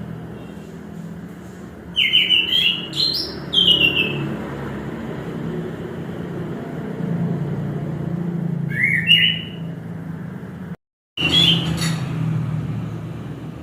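Orange-headed thrush singing short, loud whistled phrases that step quickly up and down in pitch: a burst of several notes about two seconds in, another around the middle, and a short one near the end just after a brief cut to silence. A steady low rumble runs underneath.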